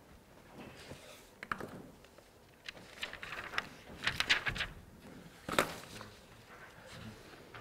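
Scattered clicks, taps and rustles of things being handled on a lecture desk, thickest between about three and four and a half seconds in, with a sharp click a little later.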